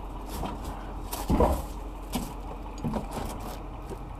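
A vehicle engine idling steadily, with a few dull thumps and knocks, the loudest about a second and a half in.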